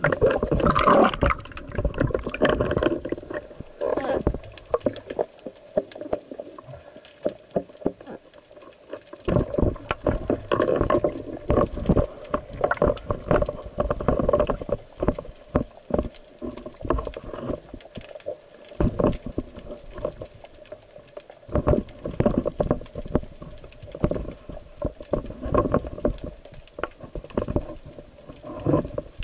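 Water sloshing and gurgling around the camera in irregular bursts, with short lulls, as a spearfisher moves at the surface.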